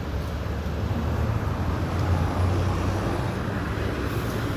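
Road traffic noise: a steady low rumble of passing vehicles that swells slightly about two seconds in.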